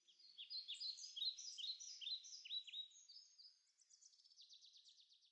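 Birds chirping: a rapid series of high chirps, giving way about three and a half seconds in to a faster, softer trill that fades away.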